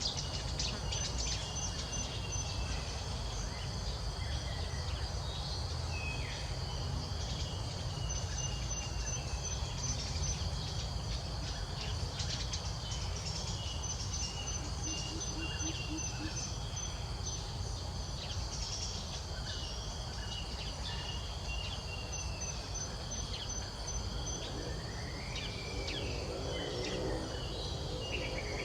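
Outdoor ambience of insects trilling steadily, with birds chirping now and then, over a constant low rumble. Near the end a short sound with several stacked tones rises briefly above it.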